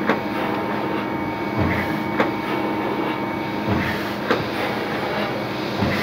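KAMA die-cutting and hot-foil stamping machine running, with a steady motor hum. It cycles about every two seconds, each cycle a brief low surge followed by a sharp clack.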